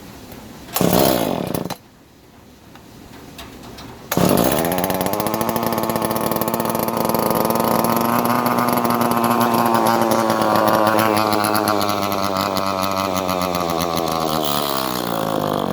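Echo CS-305 two-stroke chainsaw being started: a short loud burst about a second in, then the engine catches about four seconds in and runs at a steady idle without revving. The owner has found its throttle stuck, so it will not accelerate.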